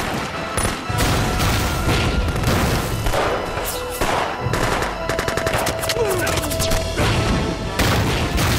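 Battle sound effects: rapid bursts of submachine-gun and rifle fire with explosions, including a fast run of shots about five seconds in, over dramatic background music.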